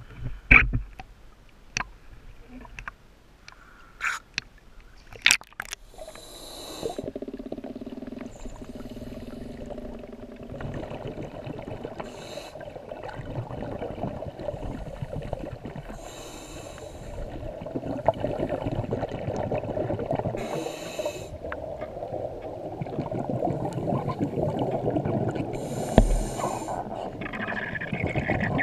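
Scuba regulator breathing heard underwater through the camera housing: a hiss on each inhale, about every four to five seconds, with bubbly rumbling exhales between them. A few sharp knocks and splashes come in the first six seconds, before the dive.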